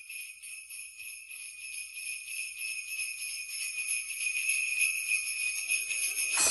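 Jingle bells shaking continuously, a bright high jingle that grows gradually louder.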